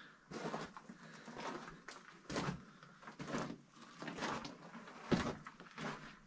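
Footsteps on loose rock and gravel in a mine tunnel, a steady run of about two steps a second.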